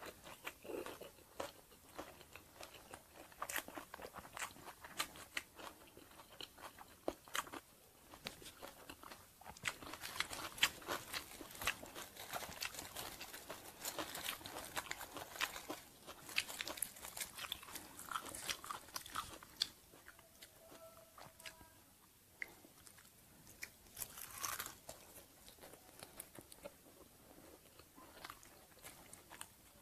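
Close-up eating sounds of a crispy banh chhev crepe with fresh lettuce and herbs: chewing and crunching, with crackling as the crisp crepe is torn apart by hand. The crackles come thickest in the middle, ease off briefly, then come again.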